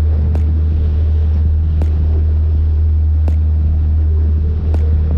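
Boat outboard motor running steadily at trolling speed, a constant low drone, with wind and water noise over it. A light tick recurs about every one and a half seconds.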